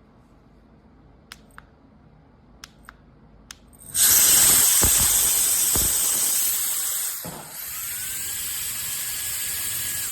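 A few light clicks, then about four seconds in a cordless electric air duster starts with a loud rush of air and a high motor whine. A little after seven seconds it dips, then the motor whine rises in pitch and holds steady.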